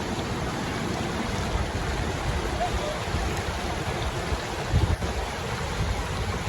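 Whitewater rapids rushing steadily, with a brief low buffeting on the microphone about five seconds in.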